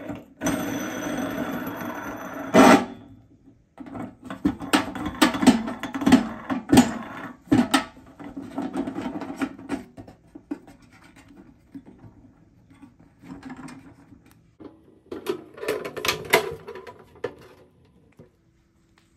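A steel washer and nut being fitted onto a threaded steel pipe nipple through the wall of a steel ammo can, then tightened with channel-lock pliers. A scraping rub lasts about two and a half seconds and ends in a sharp click, followed by many sharp metallic clicks and clinks of metal on metal.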